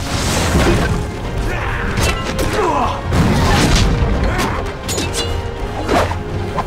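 Film soundtrack: a music score under several crashes, booms and hits from an explosion and a hand-to-hand fight.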